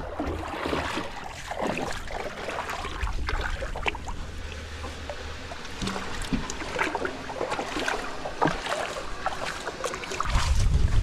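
Shallow water splashing and sloshing as a person wades beside an aluminium boat, walking it through a shallow creek, with scattered small knocks and splashes. Wind buffeting the microphone grows louder near the end.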